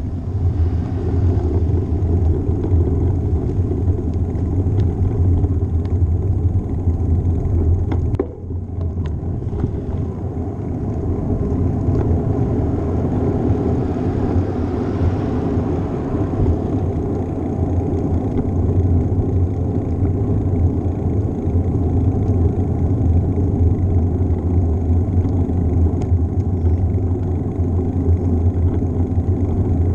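Wind buffeting a GoPro's microphone on a moving bicycle: a steady low rumble that briefly drops about eight seconds in.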